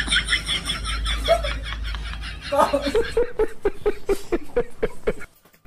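Laughter sound effect edited in as a meme: quick high-pitched giggling pulses at first, then a man's rhythmic 'ha-ha-ha' laugh at about five a second, which cuts off abruptly near the end.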